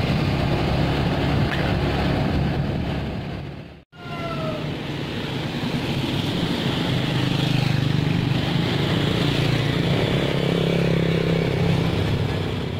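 Motorbike engines running with a steady low drone, broken off briefly at a cut about four seconds in. Near the end a motorbike passes close by, its engine note rising.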